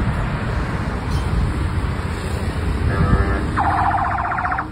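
Road and vehicle noise from a convoy of SUVs driving past. About three seconds in comes a brief tone, then about a second of rapidly pulsing electronic siren from the convoy.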